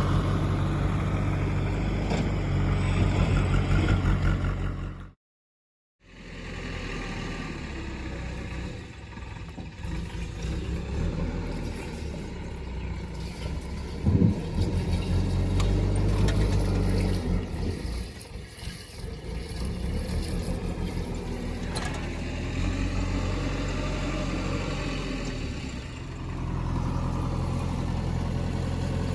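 Heavy diesel machinery engine running, its level rising and falling as it works, with the sound cutting out completely for about a second about five seconds in.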